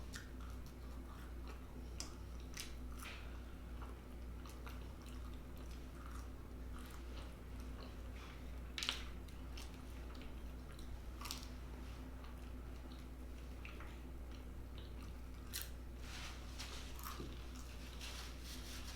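A person chewing and biting food close to the microphone, with scattered short crunches and clicks; the sharpest crunch comes about nine seconds in.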